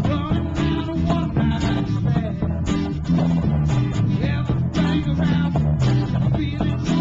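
Band music led by guitar, with a steady beat of about two strokes a second.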